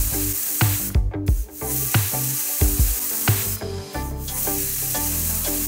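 Background music over a steady hiss of steam escaping from a stovetop pressure cooker's whistle weight as the cooker vents under pressure.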